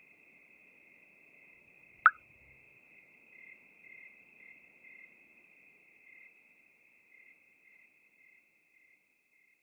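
Faint, steady high insect-like chirring, with one sharp, loud click about two seconds in, followed by short high pips about twice a second that thin out and fade near the end.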